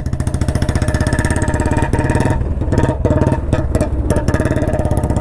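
Motorcycle engine running under way, a steady loud beat of firing pulses.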